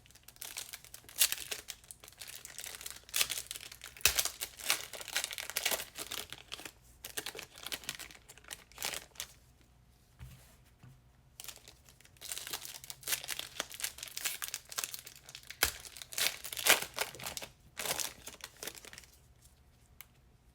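Trading card packs being torn open: the plastic foil wrappers crinkle and rip in repeated bursts, with short pauses between.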